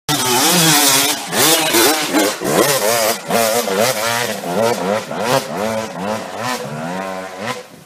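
A small engine revving up and down over and over, its pitch rising and falling about twice a second.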